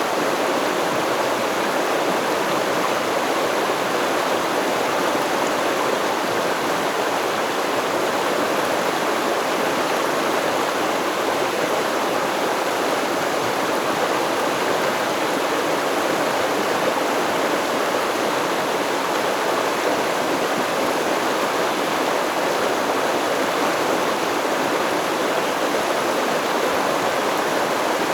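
Water of a river or stream flowing over stones: a steady rushing babble with no change in level.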